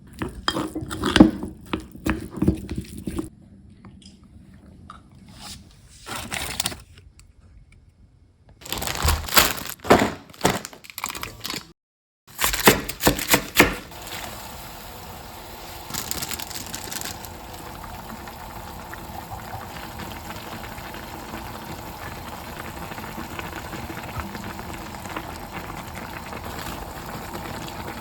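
Kitchen cooking sounds: bursts of dishes and utensils clattering, with some crinkling, in short takes separated by pauses. From about halfway through, a steady hiss of food frying in a pan.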